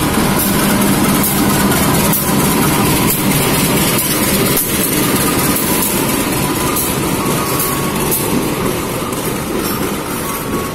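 A CC201 diesel-electric locomotive runs past close by as it hauls passenger coaches into the platform, followed by the steady rumble of the coaches rolling slowly past. A thin steady squeal joins in the second half as the train slows.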